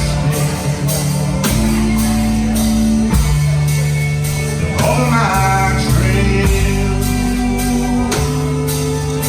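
A rock band playing a song: drums keep a steady beat a little over two a second under bass and guitar, with a wavering lead line rising out of it about halfway through.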